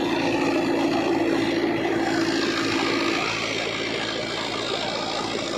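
Farmtrac 6055 four-cylinder tractor running steadily while pulling a Gurbaz 8-foot super seeder through the field. A humming tone in the noise fades out about three seconds in.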